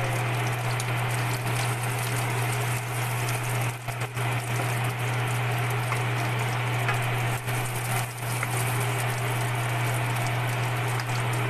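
Chorizo slices sizzling and crackling in hot oil in a frying pan, over a steady low hum. A spatula moves the pieces around now and then.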